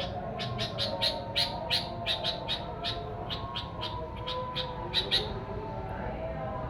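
Sooty-headed bulbul calling in a fast series of sharp chirps, about three a second, which stop about five seconds in, over a steady low hum.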